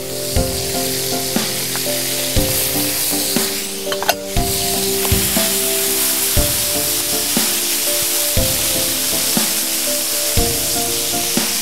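Chopped squid sizzling as it fries in hot oil in a paella pan, stirred with a wooden spatula while it browns. Background music runs under it, with held notes and a beat about once a second.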